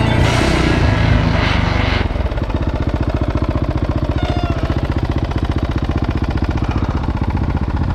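Dirt bike engine idling with an even, quick pulse, after background music cuts out about two seconds in.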